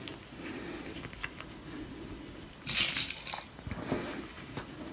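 Fabric being handled while pins are pushed in to hold two layers together: quiet rustling with a few faint light clicks, and a louder rustle about three seconds in.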